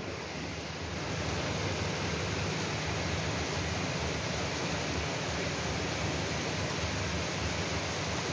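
Heavy rain falling in a steady hiss, a little louder from about a second in.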